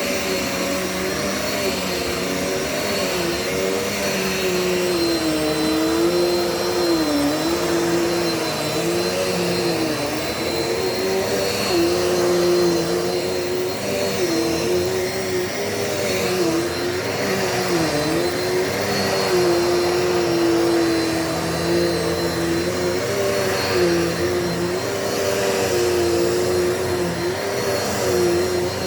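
Dirt Devil Multi-Surface vacuum cleaner running steadily, its motor pitch dipping and recovering every second or two over a thin, steady high whine.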